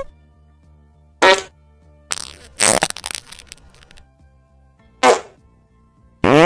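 Four separate farts: a short pitched one about a second in, a longer broken-up one around two to three seconds, a brief one at five seconds, and one rising in pitch near the end. Faint music plays steadily underneath.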